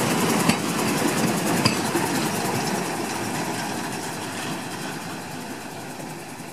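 Engine of Tramlink works vehicle 058, a rail engineering car, running as it rolls past on the tram track and draws away, fading steadily. Two sharp clicks come in the first two seconds, a little over a second apart.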